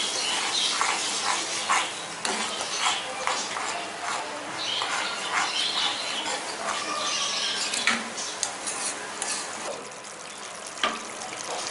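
A spoon stirring thick masala gravy in a steel pan, scraping and knocking against the pan in short repeated strokes, while the gravy sizzles as it cooks.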